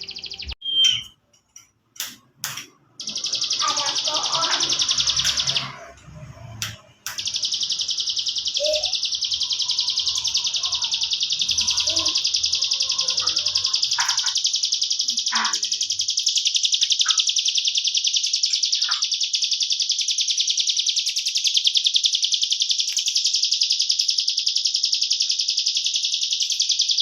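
Songbird tutor recording ('masteran'): a continuous, very rapid high-pitched trill. It breaks off and restarts a few times in the first seven seconds with short clicks, then runs unbroken, with faint lower chirps underneath.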